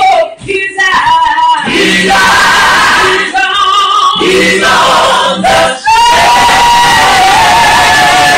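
A gospel song sung in a high voice with long held notes, and other voices in the room joining in.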